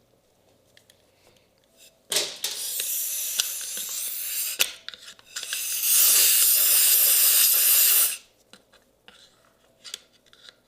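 Compressed-air blow gun blasting stones and dirt out of a motorcycle fairing connector trough: two long hissing blasts, the second louder, with a few sharp clicks.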